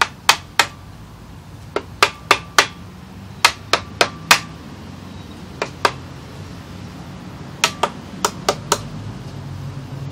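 Rubber mallet tapping a homemade stainless-steel skeg guard onto an outboard motor's skeg: about eighteen sharp strikes in quick bursts of two to five, some leaving a faint metallic ring.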